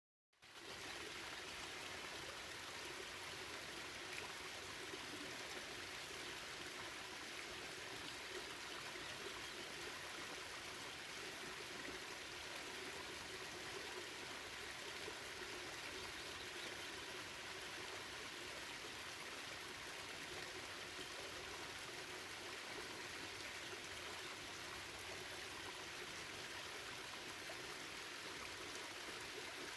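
Water of the Bayehon waterfall and its stream rushing steadily, an even wash of sound that fades in from silence within the first half second.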